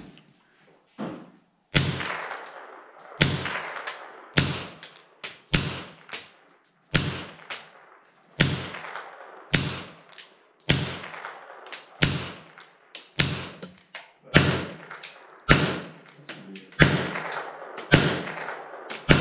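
Semi-automatic AR-15 rifle fitted with a .22 LR conversion kit firing about fifteen shots in steady succession, a little over a second apart, each shot ringing briefly under the firing line's roof.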